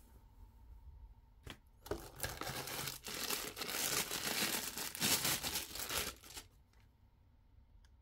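Packaging being unwrapped and handled: a sharp click about a second and a half in, then about four and a half seconds of rustling that stops.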